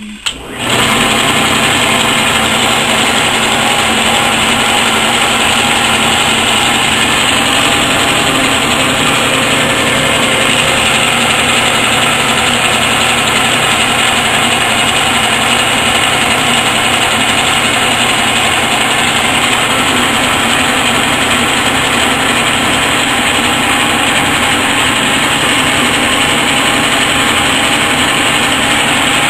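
A 1940s South Bend metal lathe running under its motor and belt drive, a loud, steady mechanical whir that comes in abruptly and holds unchanged.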